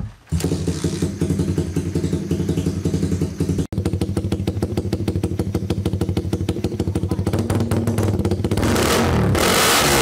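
Suzuki Raider R150 Fi single-cylinder four-stroke engine running loud through an aftermarket AUN conical exhaust, pulsing at a low steady speed. It is revved up hard to high rpm near the end.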